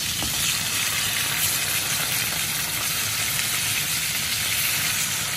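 Pork chops frying in olive oil in a nonstick frying pan, a steady sizzle, as the chops are turned over with tongs.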